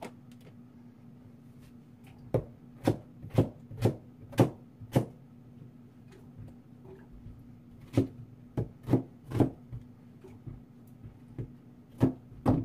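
Kitchen knife chopping radish on a plastic cutting board: a run of six sharp knocks at about two a second, then four more, and two near the end, over a faint steady hum.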